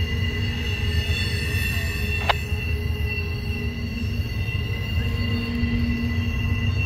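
Double-stack container freight train rolling through a curve: a low, steady rumble with the steel wheels squealing against the rail in several high, steady tones. A brief sharp click about two seconds in.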